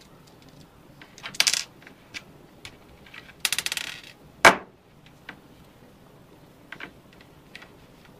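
Small hard plastic and metal clicks and rattles from a car cigarette-lighter plug being taken apart by hand: a brief rattle about a second and a half in, a rapid run of ticks about three and a half seconds in, and one sharp click a moment later, the loudest.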